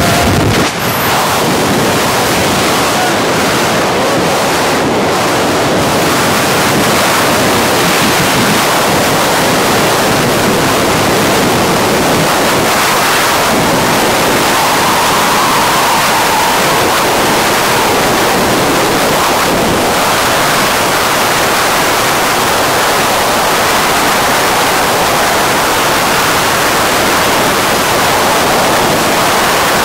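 Freefall wind blasting across the camera's microphone during a tandem skydive: a loud, steady rush of noise that begins as the pair leaves the aircraft.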